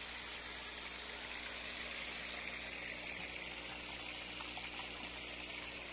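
Steady stream of water pouring from a PVC return pipe into a fish tank, splashing and churning the surface. The flow is strong, with the pumps and settling tank freshly cleaned.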